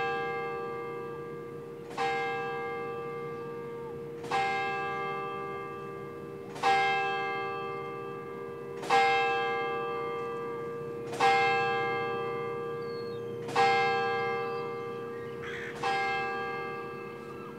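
A single bell tolling slowly and evenly, about one stroke every two and a quarter seconds, each stroke ringing on and fading into the next.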